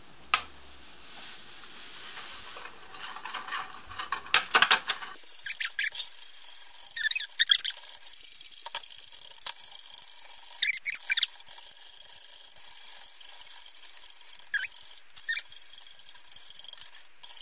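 Wire whisk beating instant custard in a white enamel saucepan. After a softer rustling start, from about five seconds in comes a steady fast swishing hiss, broken by many clicks and short squeaks as the wires scrape the enamel.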